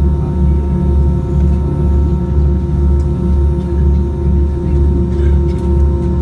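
Airbus A319's hydraulic power transfer unit (PTU) barking inside the cabin: a low, pulsing growl over the steady hum of the aircraft during taxi after pushback.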